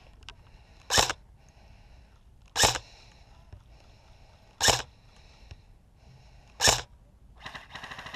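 Airsoft rifle fired in single shots: four sharp cracks about two seconds apart. A faint rattle follows near the end.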